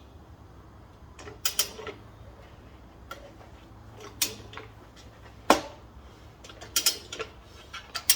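Scattered sharp metal clicks and clacks from a manual motorcycle tire changer and its tools as a supermoto rear tire is worked onto the rim. The loudest click comes about five and a half seconds in, with a quick cluster soon after.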